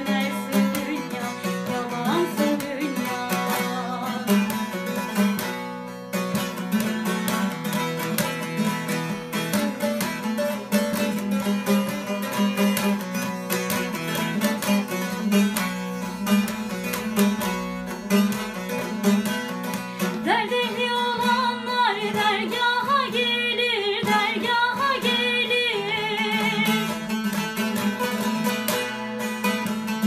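Bağlama (long-necked Turkish saz) played, a moving plucked melody over a steady low note. A woman's voice sings along for a few seconds in the second half.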